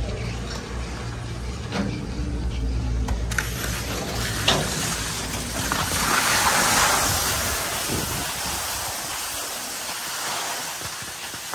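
Skis gliding and scraping over soft late-season snow, a steady hiss that swells about six seconds in. In the first three seconds there is a low hum from the chairlift at the unload station.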